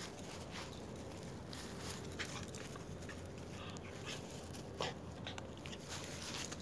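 Jack Russell terrier puppy snuffling and sniffing with its nose in the grass, a few short sharp noises scattered through and a brief whine about five seconds in.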